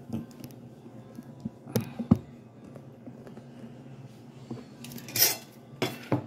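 Steel kitchen knife clinking and scraping against a ceramic dinner plate as it is handled, with a few sharp clinks about two seconds in and a brief rustling scrape about five seconds in.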